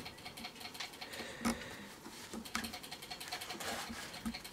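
Faint clicks and rustles of fingers handling an FPV drone's video transmitter board and its wires as the board is seated onto the flight-controller stack, with one sharper click about a second and a half in.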